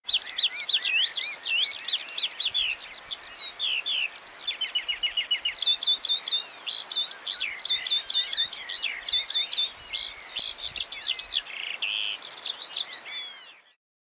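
Eurasian skylark singing: an unbroken stream of rapid high chirps, whistles and trills, with a run of fast repeated notes about five seconds in. The song fades out just before the end.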